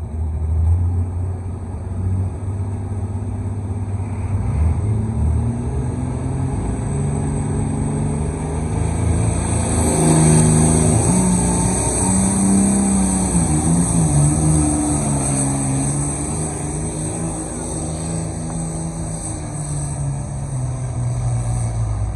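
Diesel engine of a pulling tractor at full throttle, dragging the weight-transfer sled and belching black smoke, its note wavering under the load. It runs loudest around the middle, where a high whistle builds over it.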